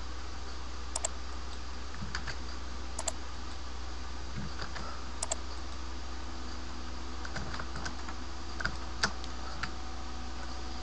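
Scattered clicks of a computer mouse and keyboard, a few at a time with pauses between, some in quick pairs, over a steady low hum.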